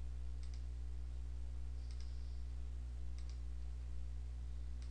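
Computer mouse clicking about four times, each a short double click of button press and release, over a steady low electrical hum.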